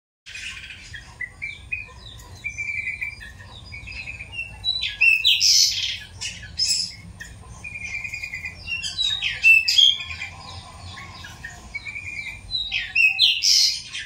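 Caged pied bushchat (decu) singing: a varied, chattering song of short chirping phrases repeated over and over, broken by a few louder, sharper high notes.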